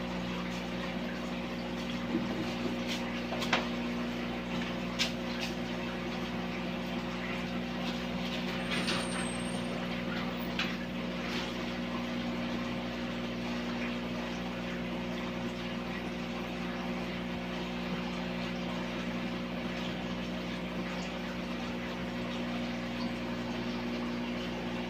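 Steady hum of an aquarium's submersible water pump, with a few light clicks in the first five seconds.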